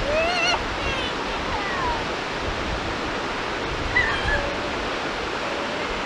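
Steady wash of small sea waves breaking on a sandy shore, with a few brief high calls over it in the first couple of seconds and once around four seconds in.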